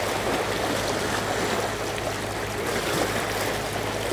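Sea waves washing ashore, a steady rushing noise, with a faint low hum underneath.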